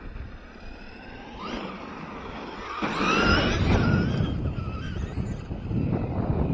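Electric RC monster truck's motor whining, the pitch bending up and down as it is throttled. It is much louder from about three seconds in, with a low rumble underneath.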